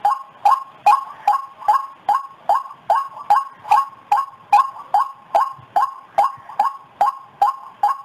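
White-breasted waterhen (ruak-ruak) calling, a short two-pitched note repeated evenly about two and a half times a second, as used for luring the bird.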